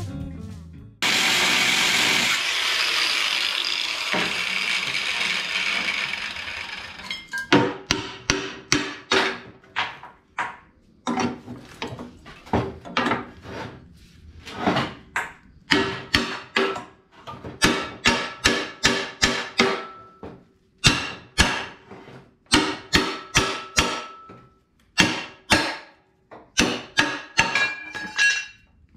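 A hiss that starts suddenly about a second in and fades over some six seconds, then a hammer striking steel in quick runs of blows, each blow ringing.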